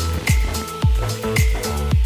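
Background electronic music with a steady beat: a deep kick drum that drops in pitch, about two hits a second, with crisp high percussion over it.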